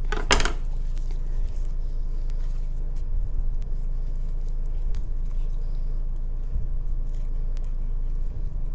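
Steady low hum under faint wet squishing and scraping as raw chicken is pulled apart by hand and knife, with one brief sharp scrape just after the start.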